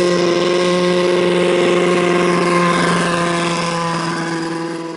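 Turbocharged Yamaha RX1 snowmobile's four-stroke four-cylinder engine running hard at a steady high pitch as the sled drives across a stubble field, fading out near the end.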